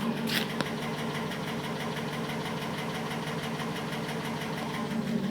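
2010 Cadillac Escalade ESV's 6.2-litre V8 idling with a quick, even clicking, about five or six clicks a second, which the owner takes for piston slap. One sharper click just after the start.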